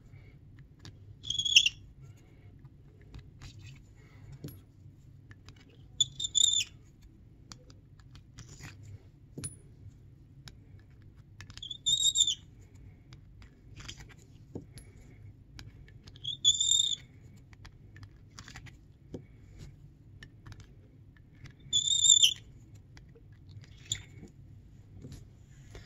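Hand chamfer and deburring tool cutting the mouths of 6.5 Creedmoor brass cases: a short, high-pitched squeal of the blade on the brass about every five seconds, five times, with light clicks of the cases being handled between.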